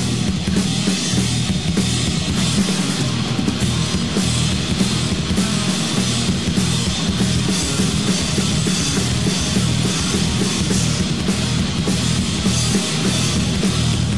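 Loud, fast heavy rock played by a band with no singing: a drum kit beating rapidly over bass and guitar.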